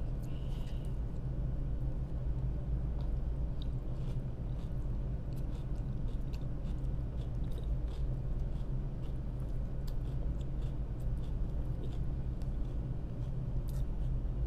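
Steady low drone of an ASD tug's diesel engines, with faint irregular clicks of someone chewing close by.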